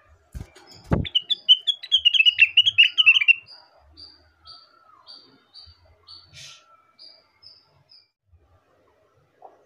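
Rengganis (cucak wilis) leafbird singing: a low thump about a second in, then a loud, rapid twittering warble for about two seconds, followed by a string of short high notes repeated about twice a second.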